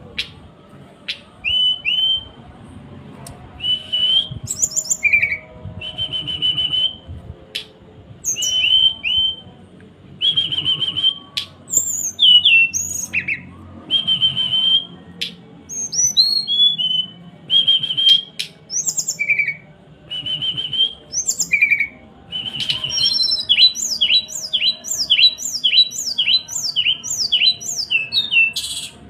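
Sulingan songbird calling (the 'cekrekan' call): short clear whistled notes and quick sliding chirps with a few sharp clicks in between. Near the end comes a fast run of sharp downward chirps, about two a second.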